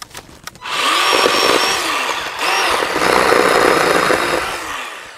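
Greenworks 40V 12-inch battery-powered chainsaw whirring up after a few clicks and cutting into small limbs in two bursts, with a brief drop about two and a half seconds in. The electric motor's whine bends in pitch as the chain loads and unloads, then fades near the end.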